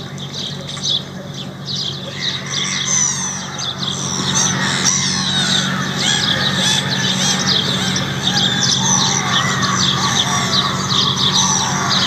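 A dense chorus of many birds chirping and twittering over one another, growing fuller a few seconds in, over a steady low hum.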